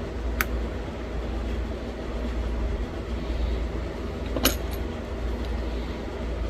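Two sharp clicks of small flakes snapping off a thin stone point being knapped; the second, about four and a half seconds in, is louder and followed by a couple of quick ticks. A steady low hum runs underneath.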